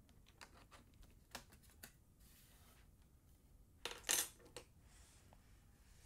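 Light clicks and snaps from a laptop's plastic bottom cover being pried loose at its edge, a few scattered at first and a louder cluster about four seconds in.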